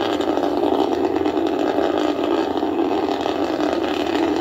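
Steady roar of a Soyuz rocket's first-stage engines during ascent, shortly after liftoff.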